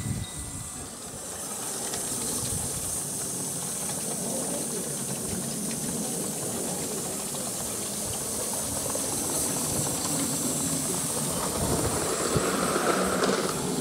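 Gauge 1 gas-fired live steam model of an LNER A4 locomotive running past with a steady hiss of steam and its wheels rumbling on the track. It gets louder near the end as it rolls onto a metal truss bridge.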